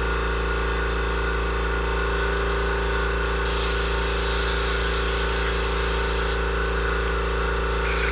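Aerosol carburetor cleaner spraying in a hissing burst of about three seconds, starting a few seconds in, then a shorter spray near the end, while the clogged carburetor is being cleaned out. A steady machine hum runs underneath.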